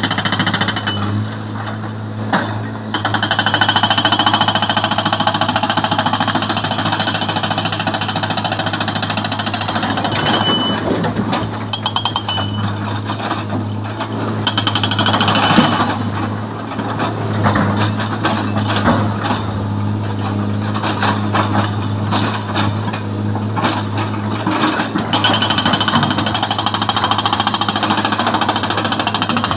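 Hydraulic rock breaker on an excavator hammering rock with rapid repeated blows, over the steady low drone of diesel engines.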